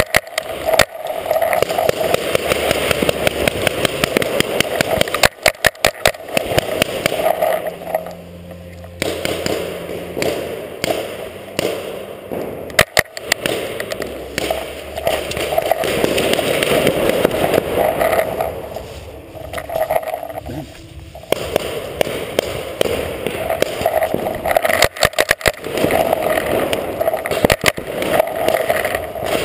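Steady rolling, rattling noise of a camera rig moving low over a concrete floor, broken by several short bursts of rapid sharp pops, about 5, 13, 25 and 27 seconds in: paintball markers firing.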